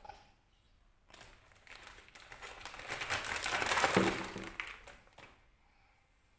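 Plastic packaging crinkling and rustling as a toy pack is opened, growing louder over a few seconds and dying away about five seconds in.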